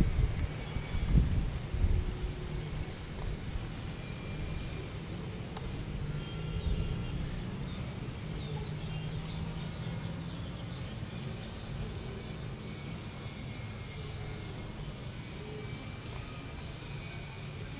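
Outdoor ambience: a steady low rumble with faint, scattered bird chirps, and a few louder low thumps in the first two seconds.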